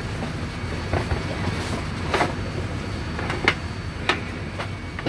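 Carry-on bags being pushed into a small airliner's overhead bin: a handful of short knocks and bumps over a steady low cabin hum.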